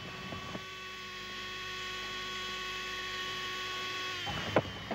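A steady electrical hum made of several held tones, which cuts off about four seconds in and is followed by a single sharp click.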